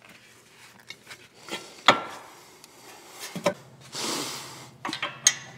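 Metal suspension parts and hand tools knocking, clicking and scraping as a front knuckle is fitted to the coilover and axle. The loudest knock comes about two seconds in, a short rushing noise follows around four seconds, and a few quick clicks come near the end.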